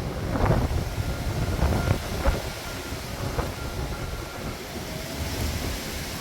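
Storm wind buffeting the microphone as a steady low rumble, with a few short knocks in the first half.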